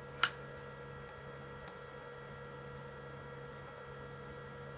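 A single short, sharp click about a quarter second in, then only a steady faint electrical hum.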